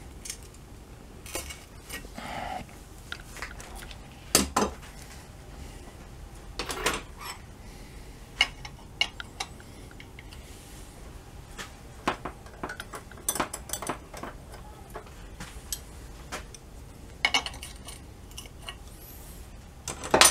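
Metal hand tools clinking on metal: locking pliers and a small combination wrench knocking and scraping against a bolt and its silver-soldered nut in a sterndrive upper gearcase. The sound comes as scattered clinks and knocks, the loudest about four seconds in and at the very end.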